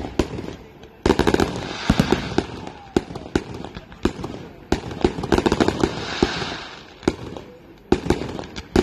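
Fireworks going off: rapid volleys of sharp bangs and crackling over a hiss, densest about a second in and again around five seconds, then easing off to a few single bangs near the end.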